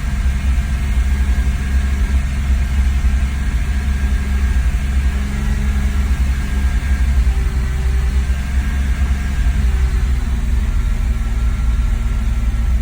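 BMW E46 330Ci's 3.0-litre inline-six engine running steadily at one held speed with the throttle floored, not revving any higher. The car has a no-power fault: with the MAF sensor unplugged it will not pass about 3,000 rpm.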